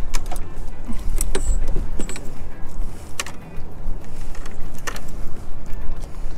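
Scattered sharp clicks and light rattles from hands handling a landing net with a fish in it, over a constant low rumble.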